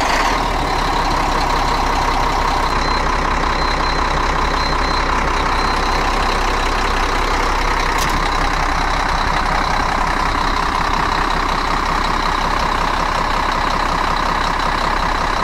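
Volvo truck's diesel engine idling steadily, just after being started.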